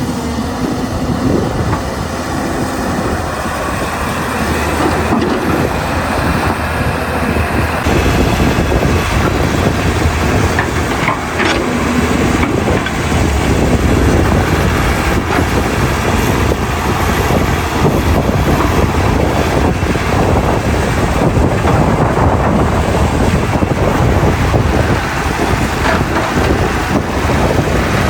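Caterpillar 320C excavator's diesel engine running steadily under work, with continuous clanking and rattling throughout.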